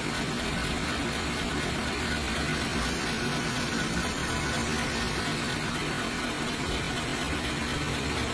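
Restored Toyota Starlet 1300 cc four-cylinder engine idling steadily.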